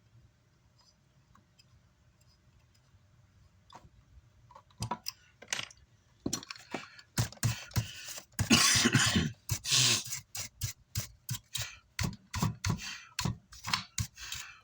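Wires and metal parts being handled on a workbench: a run of clicks, knocks and scrapes that starts about five seconds in, with a longer rustling scrape around the middle, as power leads are connected to an amplifier's terminals.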